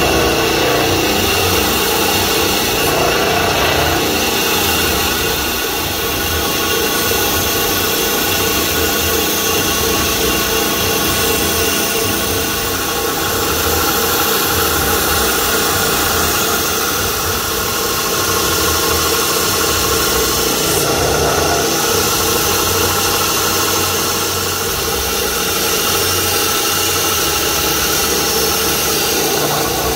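Bandsaw running steadily and cutting through a thick wooden block: an even machine noise with a constant hum, swelling slightly as the blade works through the wood.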